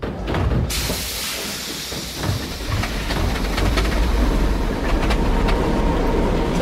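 A submarine's diesel engines running with a deep, steady rumble, joined under a second in by a loud hiss that starts suddenly, with scattered clanks.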